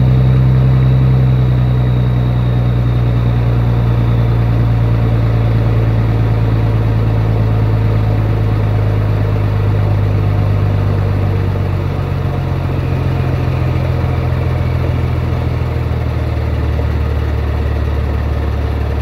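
Scania 111 truck's inline-six diesel engine idling on its first cold start of the day, its idle speed easing down about two-thirds of the way through.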